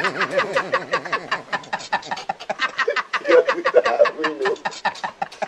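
A man laughing hard: a fast, unbroken string of short ha-sounds that grows quieter toward the end.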